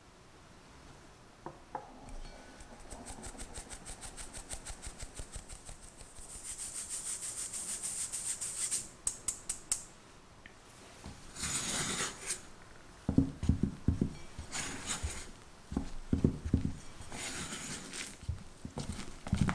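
A stainless-steel mesh sieve tapped to sift flour into a glass bowl, a fast even ticking of about five taps a second with a hiss of flour through the mesh for a few seconds. From about the middle on, a spatula scrapes and folds the thick batter against the glass bowl, in irregular strokes with soft thumps.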